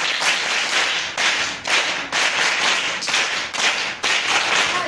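A group clapping together on cue, a dense run of many hands clapping.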